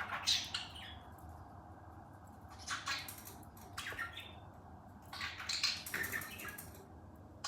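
Pet parrot giving a few short squawks and chirps, spaced a second or two apart, with a small cluster of calls past the middle.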